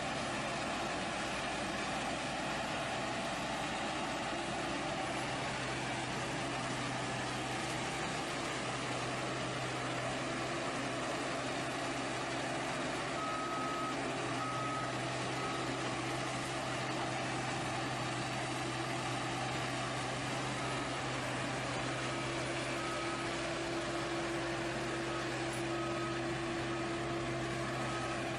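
Heavy vehicle engines of a sugarcane truck and a tractor-mounted cane grab loader running steadily. From about halfway, a run of short high beeps comes and goes over them.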